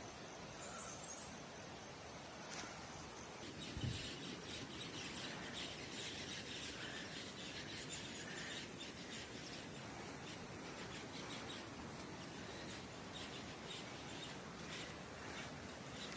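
Rural outdoor ambience with faint bird chirps and insect chirring over a steady background hiss. A single low thump comes about four seconds in.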